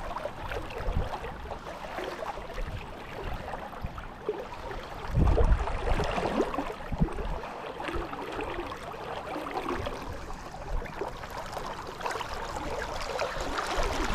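Brook water running steadily, with a short low rumble about five seconds in.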